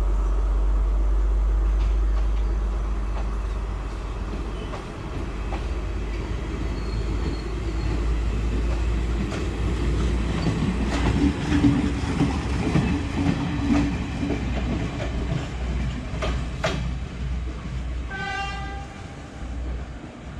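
Sri Lanka Railways Class S12 diesel multiple unit with Class S9 coaches pulling out and rolling past: a steady low engine rumble and wheels clacking over the rail joints. Near the end the train sounds one short horn blast as it draws away.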